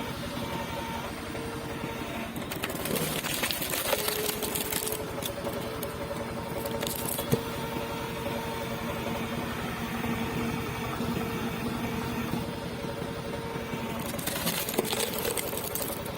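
Hydraulic log splitter running with a steady motor and pump hum; its pitch dips slightly about four seconds in as the ram takes up load. Two stretches of rougher noise come around three seconds in and near the end, and there is a single sharp click about seven seconds in.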